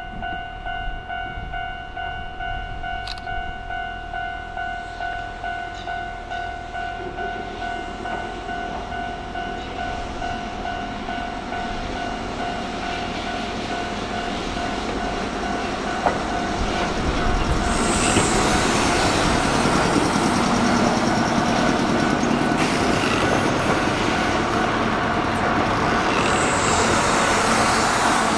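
Kintetsu "Aoniyoshi" electric train approaching and passing. Its running noise builds through the middle and is loudest in the last third. Early on, a level-crossing bell rings in a steady pulse about twice a second, and it is drowned out as the train comes by.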